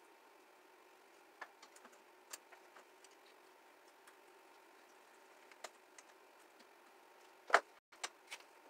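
Scattered light clicks and taps of parts being handled while a stripped-down moped is taken apart by hand, with one sharp knock about seven and a half seconds in and two smaller clicks after it.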